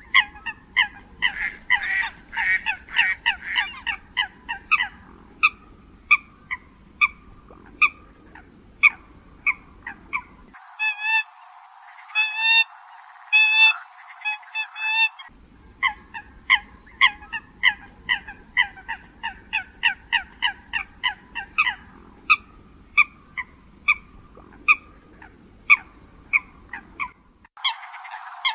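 Eurasian coots calling: a long, fast run of short, sharp honking calls, two to three a second, with a stretch of fewer, fuller calls in four clusters near the middle.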